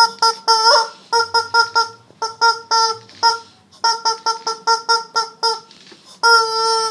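Rubber chicken toy squeezed over and over, giving a run of short squeaky honks about three a second, then one long held squawk near the end.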